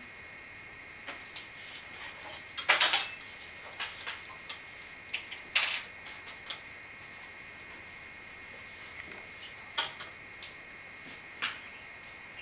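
Scattered light clicks, knocks and scrapes of drawing tools and paper being handled during pattern drafting, with two louder scrapes about three and six seconds in. A faint steady high whine runs underneath.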